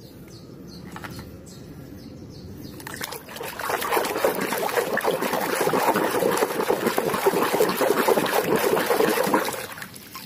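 A hand sloshing and splashing through a basin of muddy water while scrubbing plastic toys. It is soft at first, grows louder and busier about three seconds in, and eases off near the end.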